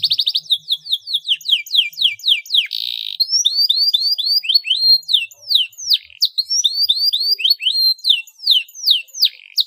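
Domestic canary singing. A fast buzzing roll gives way to runs of quick downward-sweeping whistles, with a second short roll about three seconds in and rapid repeated notes after; the song cuts off suddenly at the very end.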